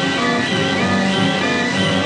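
Orchestral film-score music with held string notes.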